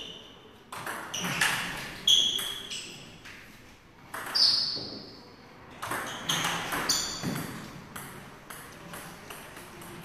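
Table tennis doubles rally: the ball is struck back and forth, each hit on a racket or the table a sharp click with a short, high ringing ping. About a dozen hits, and the rally stops near the end.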